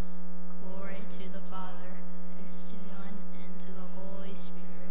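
Congregation reciting a response in unison, words blurred together, over a steady electrical mains hum that is the strongest sound throughout.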